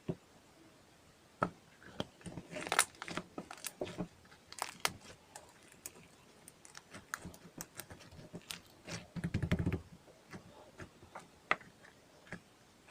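Irregular clicks, taps and crinkling handling noises, with a louder low rustle about nine seconds in.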